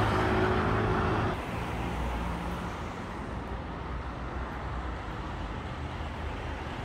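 City street traffic noise: cars and buses running past on the road. A steady low engine-like hum stops about a second in, leaving a continuous low rumble of traffic.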